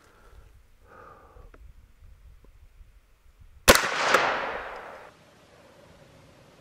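A single shot from a Savage A17 semi-automatic rifle in .17 HMR, a sharp crack a little over halfway through, its echo dying away over about a second and a half.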